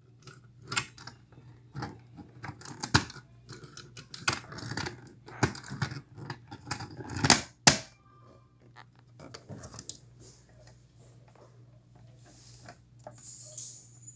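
Irregular plastic clicks and knocks from a dual-action fire alarm pull station being handled, its hinged front opened and pushed shut, with keys jangling on a ring at its reset lock. The clicking is busiest in the first eight seconds or so, then thins to scattered faint ticks; no alarm sounds.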